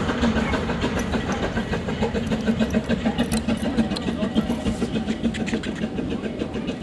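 Small narrow-gauge 0-4-0 Bagnall steam locomotive running, its exhaust beating in a quick pulse and slowly getting quieter.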